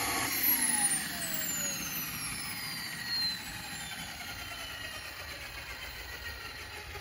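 RC Pilatus Porter model's miniature turboprop gas turbine spooling down after shutdown: a high whine that falls steadily in pitch over about three seconds, then a fading hiss as it runs down.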